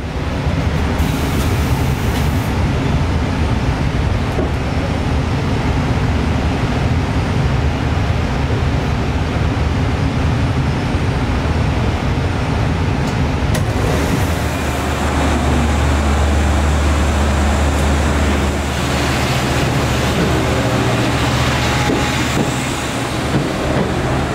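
Diesel-hauled commuter train (EMD DM30AC locomotive with C3 bi-level coaches): a steady low engine drone with running rumble, the drone swelling louder a little past the middle.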